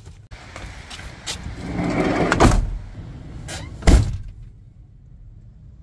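A door being opened and shut: a rush of noise with a sharp knock about two and a half seconds in, then a heavy thud just before four seconds in.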